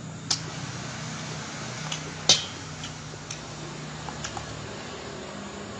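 Metal spoon clinking and scraping against a stainless steel basin of noodles, with one sharp clink about two seconds in and a few lighter clicks. A steady low hum runs underneath.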